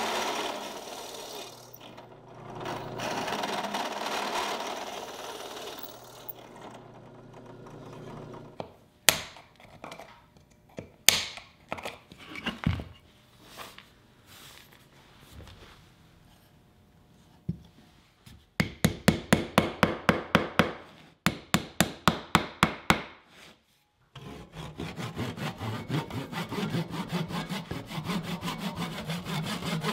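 A drill press with a plug-cutting bit hums and cuts into walnut in two long passes. A few sharp knocks and taps follow. Then a flush-cut hand saw rasps back and forth at about four to five strokes a second, in two runs, trimming wooden plugs flush with plywood.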